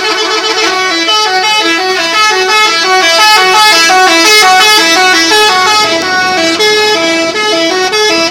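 Multi-tone telolet horn on a tour bus playing a tune: a held chord for about the first second, then several horn tones stepping quickly up and down in short notes. It cuts off suddenly at the end.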